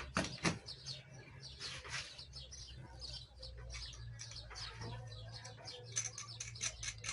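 Small birds chirping repeatedly in short calls.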